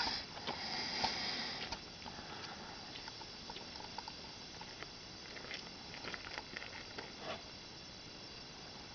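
Faint handling noise from a handheld camera: light clicks and rustles over a low hiss, with a louder breathy hiss in the first second and a half.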